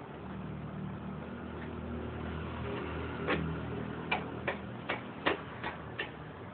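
Hand work fitting the motorcycle's drive chain and rear wheel: a low steady hum, then a run of sharp clicks about two or three a second from about three seconds in.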